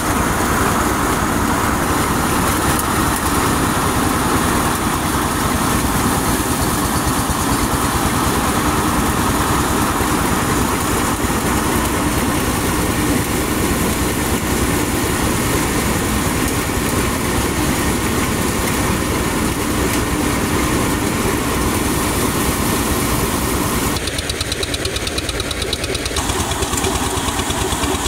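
Engine-driven paddy thresher running steadily while rice stalks are fed into its drum and threshed. A loud, even mechanical drone, its character changing briefly near the end.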